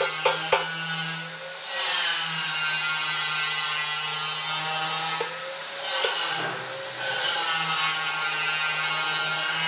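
A few sharp chipping-hammer strikes on the slag of a fresh E6013 weld bead. About a second in, a steady high whine starts, its pitch rising and falling slowly, over a low hum.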